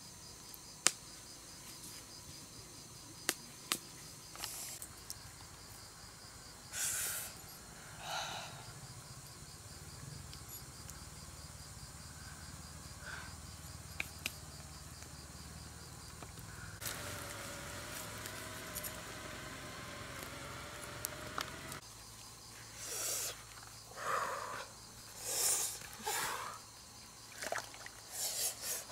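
Insects chirping steadily in a high, fast pulsing rhythm, with scattered faint rustles and knocks. Louder rustling and handling noises come near the end.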